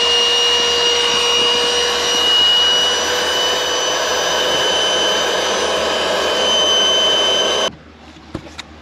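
Small 12-volt electric air pump, powered from a cigarette-lighter socket, running steadily with a high whine as it inflates an air-mattress support, then switched off suddenly near the end.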